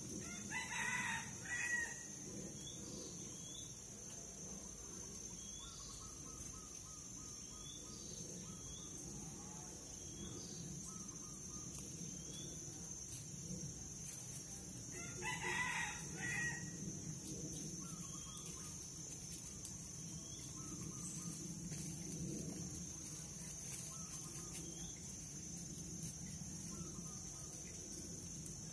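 A rooster crowing twice, once about half a second in and again around fifteen seconds in. Between the crows there is a steady high insect drone and scattered small bird chirps.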